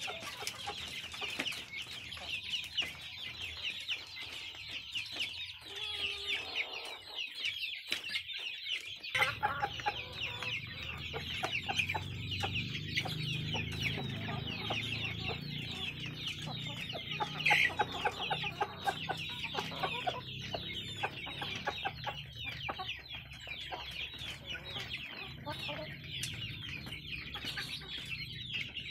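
Flock of kampung chickens clucking and calling continuously, a dense chorus of many short, high calls.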